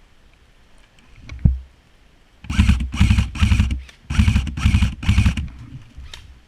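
Airsoft gun fired close by in six short full-auto bursts, in two groups of three, each a rapid rattle of shots. A single thump comes about a second before the first burst.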